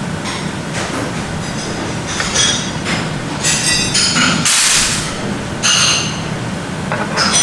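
Metal cutlery clinking against stainless-steel and ceramic bowls and dishes in a handful of separate, ringing clinks, the loudest about halfway through, over a steady low hum.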